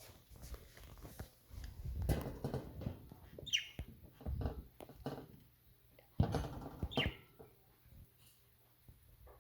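Pet budgies chirping, with two short, falling high chirps about a third and three-quarters of the way through, among irregular rustling and knocks.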